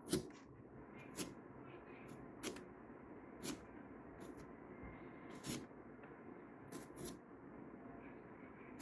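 Short scraping strokes of a hand carving tool on a pumpkin's skin and flesh, about one a second with a few pauses.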